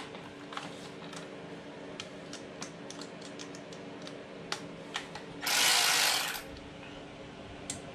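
Hand tools being worked and handled: scattered clicks and ratchet clicks, with a loud rasping burst lasting about a second about two-thirds of the way through, over a steady background hum.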